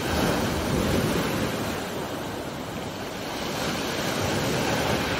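Sea waves breaking and washing up a pebble beach: a steady rush of surf that swells and ebbs slowly.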